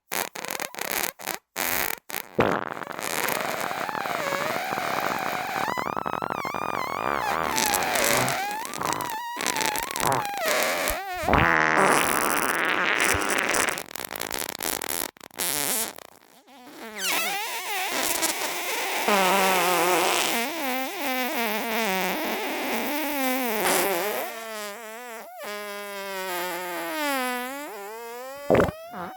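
Recorded human farts edited into a mock fireworks display. A few short sharp pops come first, then a long dense run of noisy farts, and from a bit past halfway on, long pitched farts that waver up and down in pitch.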